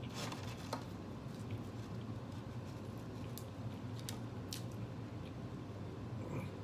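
Mouth sounds of a person chewing a burger and fries, with scattered small clicks and wet squishes as fries are picked up and dipped in sauce, over a steady low hum.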